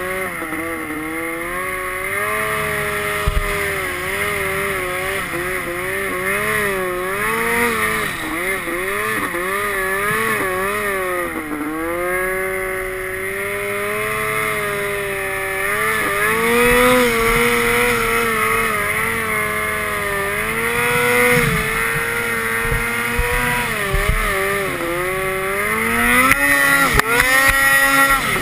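Boost-It turbocharged Polaris Pro RMK snowmobile's two-stroke engine running hard in deep snow, its pitch rising and falling with the throttle. Near the end it revs up and down quickly several times and gets louder.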